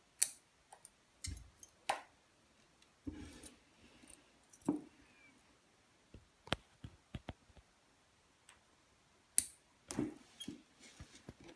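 Irregular sharp clicks and light taps of hand work: a small chrome nail-clipper-style cutter snapping shut as it trims the excess ends of thick nylon fishing line at a knot, along with small tackle being handled on a tabletop.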